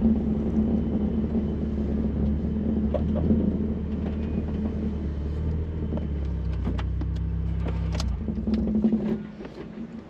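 A 1999 Mazda Miata's four-cylinder engine running at a low, steady speed, dropping lower about six seconds in and then shutting off near the end, with a few sharp clicks just before it stops.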